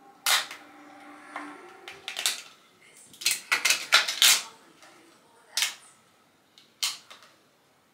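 A plastic shower shelf mount clicking and scraping against ceramic wall tile as it is handled and pressed into place: scattered sharp clicks, with a dense run of them in the middle.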